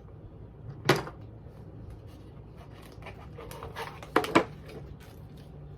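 Items being handled and packed into a shoebox. There is a sharp knock about a second in, two quick knocks just after four seconds, and faint rustling in between.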